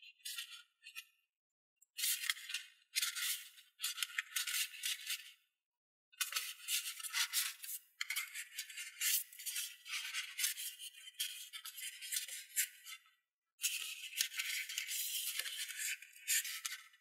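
Folded paper rustling and crinkling as hands pinch and shape an origami boat hull, a thin, crisp scratchy sound in stretches of a few seconds with brief pauses between them.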